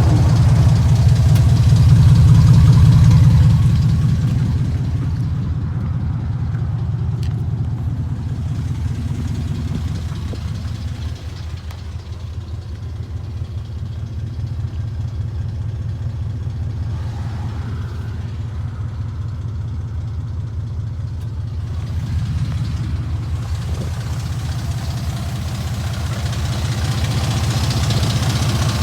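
2002 Dodge Ram's 4.7-litre V8 idling with a timing chain rattle, the sign of worn timing chains, chain guides and tensioners. It is louder in the first few seconds and again near the end.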